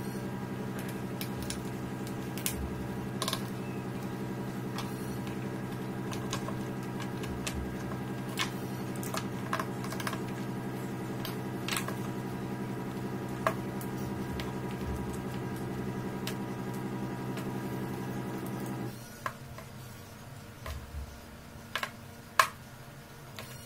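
Scattered clicks and light knocks of plastic and metal parts and wire connectors being handled as a battery strapping tool is taken apart. Under them runs a steady hum that stops abruptly about 19 seconds in.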